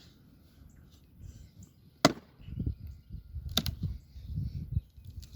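Firewood being split: a tool strikes a sawmill cutoff with one sharp crack about two seconds in and a quick double strike a second and a half later, with duller knocks of wood in between.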